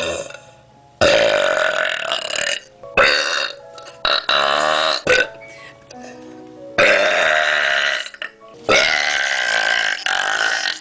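A person belching loudly, five long burps one after another with short pauses between them.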